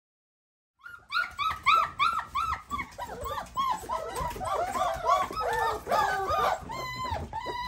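A litter of about four-week-old Belgian Malinois and Dutch Shepherd puppies whining, starting about a second in: many short rising-and-falling whines, several puppies overlapping.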